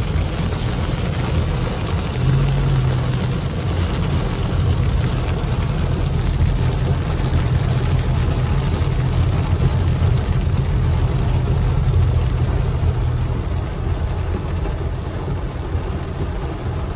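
Heavy rain on a car's windshield and body heard from inside the cabin, over the steady low rumble of the car driving on a wet road.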